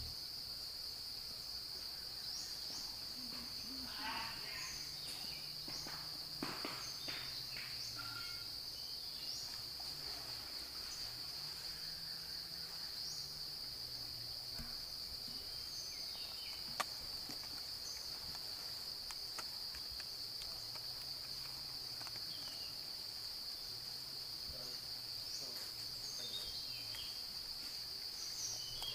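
Steady high-pitched drone of insects in forest, one unbroken tone, with a few faint short chirps above it and a single sharp click about two-thirds of the way through.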